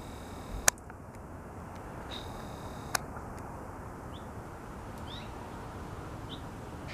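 Two sharp clicks, one under a second in and one about three seconds in. Before each there is a faint high whine from the camcorder's zoom motor. Later a few short, faint bird chirps sound over steady outdoor hiss.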